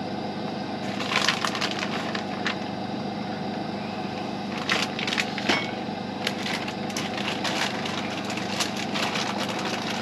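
Irregular crackling and crinkling of food packaging being handled while a layer of cheese goes into a baking pan, over a steady low hum.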